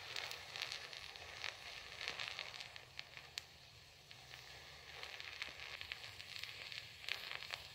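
Homemade black powder mixed with sugar and aluminium burning: a faint hissing crackle with scattered sharp pops, dying down around the middle and picking up again near the end.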